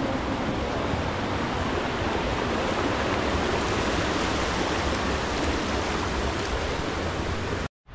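Steady rushing of a mountain stream, an even wash of water noise that holds at one level and then cuts off suddenly near the end.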